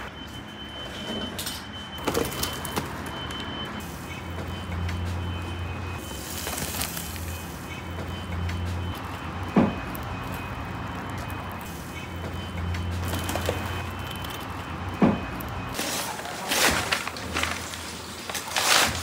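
Kitchen background with a low hum and a few sharp clicks, then about 16 seconds in, kraft paper crackling and tearing in bursts as it is stripped off a stack of terracotta bowls.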